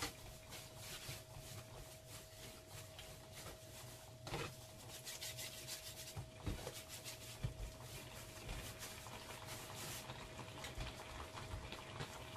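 Hands rolling and shaping soft bread dough on a floured, textured mat: faint, repeated rubbing and brushing strokes.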